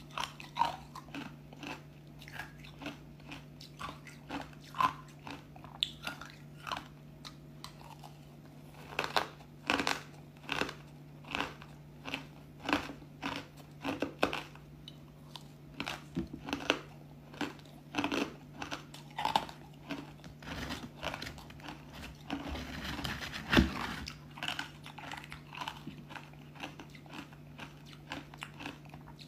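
Close-miked crunching and chewing of pieces of white ice dusted with matcha powder: a steady run of sharp, irregular crunches, about one or two a second, loudest about 23 seconds in.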